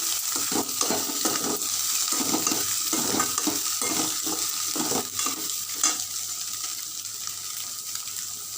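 Cauliflower, egg and onion masala sizzling in a hot pan while a spoon stirs and scrapes through it in quick strokes. The stirring stops about six seconds in, leaving the steady sizzle.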